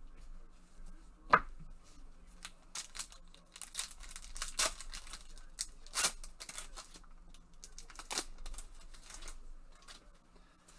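Trading cards and plastic card sleeves and holders handled with gloved hands: a sharp click about a second in, then a run of short crinkling, rustling strokes.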